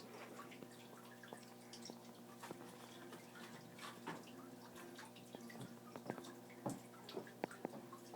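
Argentine tegu chewing a chick: faint, irregular wet clicks and smacks of its jaws, a few louder ones in the second half, over a steady low hum.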